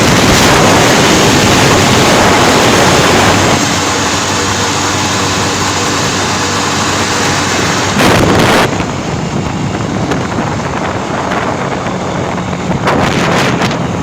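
Strong wind buffeting the microphone. About three and a half seconds in it eases enough for the Spark SP200R-28 motorcycle's engine to be heard running steadily underneath. Fresh gusts swell over it a little past halfway and again near the end.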